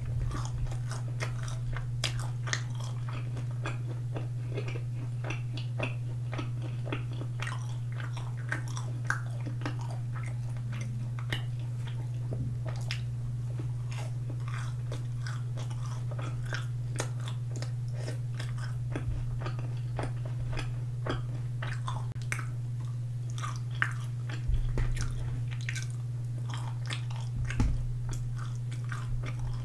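Close-up chewing and biting of sauce-glazed boneless fried chicken, with many small crackles and wet crunches, over a steady low hum. A few soft knocks come near the end.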